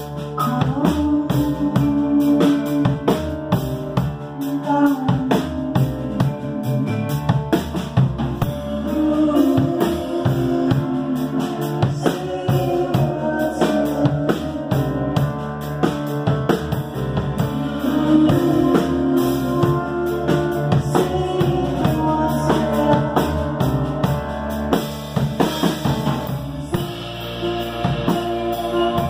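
A live band playing an instrumental passage: drum kit, piano and guitar.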